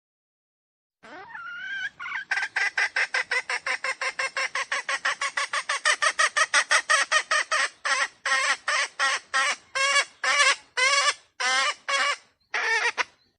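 Red junglefowl (wild chicken) calling. After a rising opening note comes a long run of short, sharp clucks at about five or six a second, slowing to about two or three a second in the second half.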